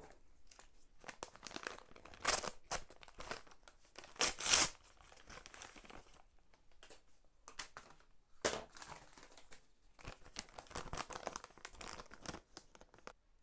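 Paper and cardboard packaging torn open and crinkled by hand, in irregular rustles with a few louder rips, the loudest about four and a half seconds in.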